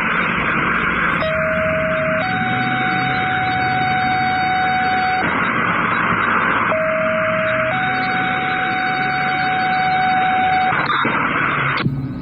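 Scanner radio hiss carrying a two-tone paging alert: a lower tone held about a second steps up to a higher tone held about three seconds, and the pair is sent twice. This is the dispatcher's alert tones for paging out fire crews.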